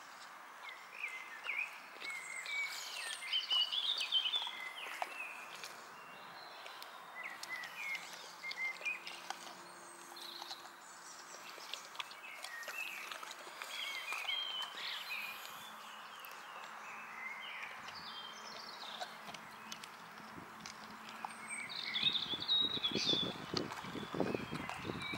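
Boxer dog gnawing and crunching a whole cucumber, with scattered short clicks of bites and a louder stretch of close, wet chewing near the end. Small birds chirp and sing throughout.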